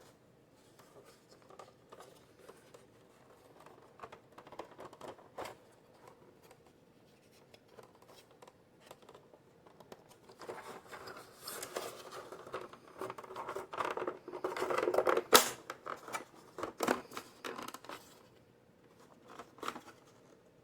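Plastic instrument-cluster parts being handled and pressed together. After faint scattered ticks, there is a stretch of scraping and rubbing about halfway through, with a few sharp clicks as pieces seat.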